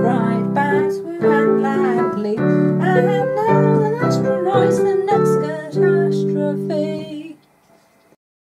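A voice sings the last lines of a Christmas-carol parody over piano chords, ending on a held chord that stops about seven seconds in, followed by near silence.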